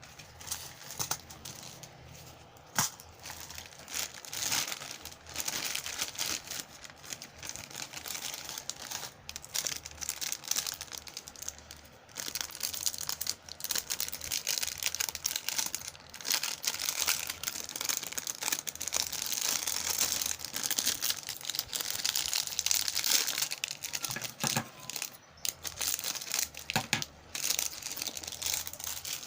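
Packaging crinkling and tearing as it is handled and opened, with many small sharp crackles, busiest through the middle.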